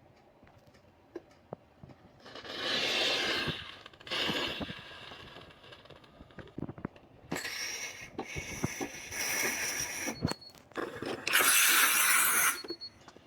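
Espresso machine steam wand hissing in four separate bursts, the last and loudest about eleven seconds in; the long third burst carries a thin high whistle.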